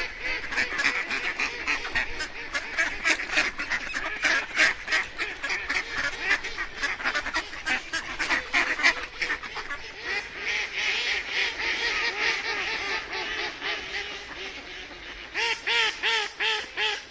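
A flock of ducks quacking, many rapid calls overlapping without a break. Near the end a few louder, separate quacks stand out.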